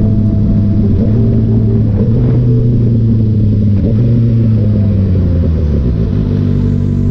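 Kawasaki ZX-6R's inline-four engine running steadily, its pitch shifting up and down every couple of seconds as engine speed changes.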